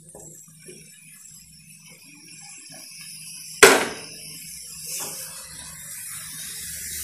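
Marinated prawns tipped into a nonstick kadai of onion-tomato masala with a light sizzle. There is one sharp clack about three and a half seconds in, then a silicone spatula stirring and scraping the pan from about five seconds on.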